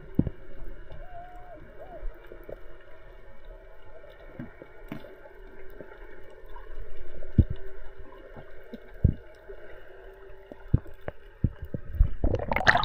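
Underwater ambience picked up by a camera below the surface: a steady hum with scattered clicks and knocks. Near the end comes a loud rush of water as the camera breaks the surface.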